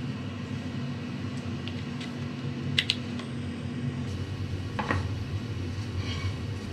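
Quiet workshop background: a steady low hum, with two short sharp clicks, one about three seconds in and one near five seconds.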